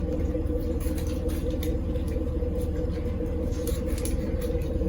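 A steady low rumbling hum throughout, with faint scattered clicks of chewing and mouth sounds from eating tacos.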